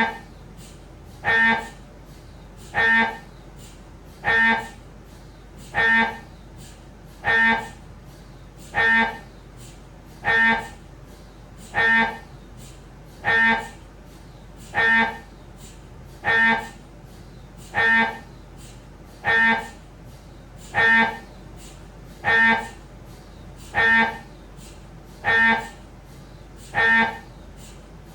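Siemens Magnetom Avanto Fit 1.5-tesla MRI scanner's gradient coils running an imaging sequence: a short pitched buzz, about half a second long, repeats evenly every second and a half over a low steady hum.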